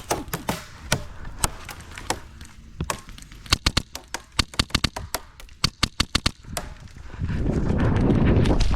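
Airsoft guns firing during a game: a string of sharp cracking shots, coming fastest in the middle, several a second. Near the end a loud rushing noise takes over.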